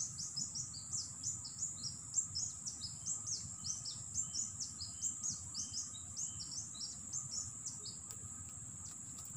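A small bird calling in a rapid series of short, high, falling chirps, several a second, that stops near the end, over the steady high drone of insects and a low rushing noise.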